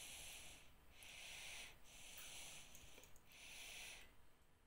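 Near silence: a faint high hiss that swells and fades about once a second.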